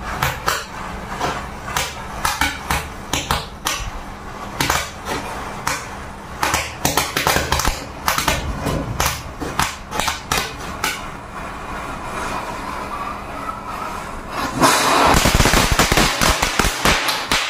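Matchstick heads flaring and crackling as fire runs along a chain of matches, with many sharp pops. About 14.5 s in, small firecrackers go off in a rapid crackling burst lasting about two seconds, the loudest part.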